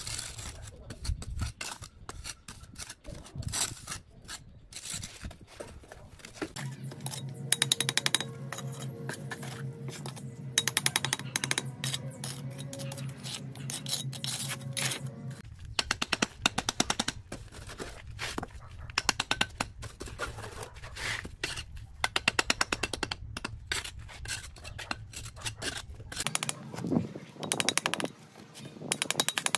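Steel brick trowel repeatedly tapping clay bricks into place and scraping wet cement mortar on the brick courses: a rapid, irregular run of sharp clicks and knocks. A steady low hum joins from about a quarter of the way in until about halfway.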